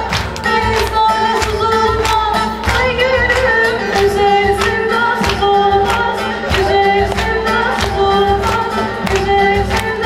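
A woman singing a Turkish folk song (türkü) live with a small band, over a steady beat.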